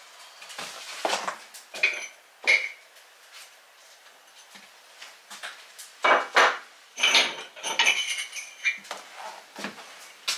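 Hard kitchen backsplash tiles clinking and clacking against each other and the countertop as they are picked up and handled, in irregular sharp clicks with a short ring, busiest about six to eight seconds in.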